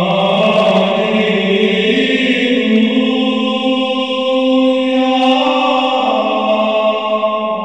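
A choir singing a slow chant, with long held notes that move to new pitches every second or two.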